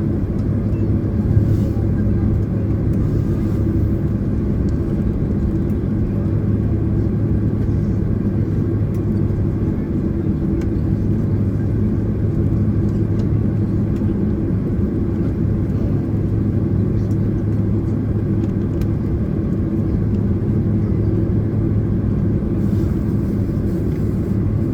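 Steady cabin noise of a Boeing 767-300ER in flight: the twin jet engines and airflow make a constant low rumble with a steady hum underneath.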